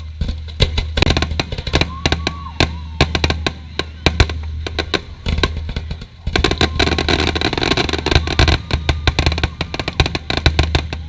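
Fireworks going off in a rapid, dense string of bangs and crackles, thinning briefly about halfway and picking up again.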